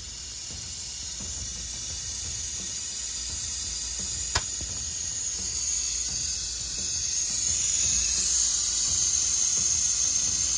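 Compressed air hissing as a boost leak tester pressurises a 2019 Duramax L5P's turbo charge-air piping toward 40 psi, with air escaping at a leaking lower charge-air boot. The hiss grows steadily louder and brighter, with a single sharp click about four seconds in.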